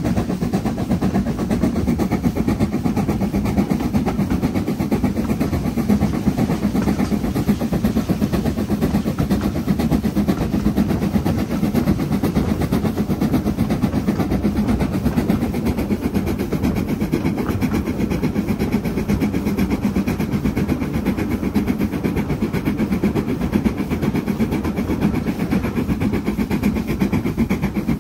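LMS Stanier Black 5 two-cylinder 4-6-0 steam locomotive working a heavy passenger train up a gradient, its rapid exhaust beats merged with the steady running noise of the train on the rails. The sound is loud and even throughout, with no break or change.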